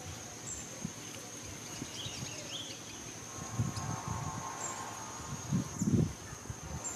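Steady high-pitched insect drone, with a few low thumps and rustles around four and six seconds in.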